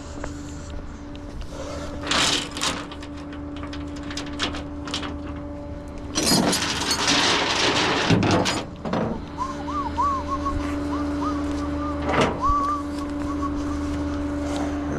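A vehicle engine idling steadily under repeated clanks and rattles of steel tie-down chain being handled and tightened, about two, six to seven, eight and a half, and twelve seconds in. From about the middle, short warbling notes come in over the idle.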